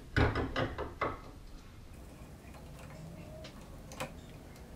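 Light clicks and taps of hands working a toothed timing belt onto a stepper motor's pulley against an aluminium frame: a quick run of ticks in the first second, then a single tap about four seconds in.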